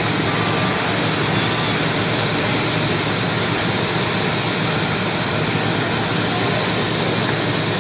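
Helicopter turbine engines and rotor running steadily, a rushing noise with a thin high whine over it.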